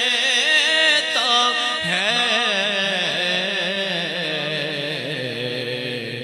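A man's voice singing a naat into a microphone, a long drawn-out wordless line with the pitch wavering up and down, getting slightly quieter toward the end.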